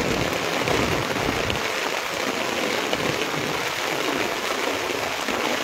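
Heavy rain falling on a flat concrete rooftop: a steady, dense hiss of drops with no let-up.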